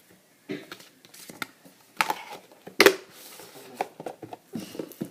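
Bead-filled pink slime squeezed and worked by hand, giving irregular crackles, pops and squelches, loudest about two seconds and three seconds in.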